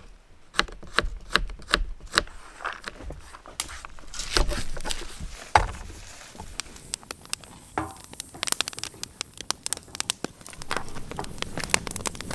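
Knife chopping on a cutting board in runs of quick knocks, then chopped food scraped off the board into a bowl. Later, a metal spoon stirring food in a steel frying pan set on a grate over a crackling campfire.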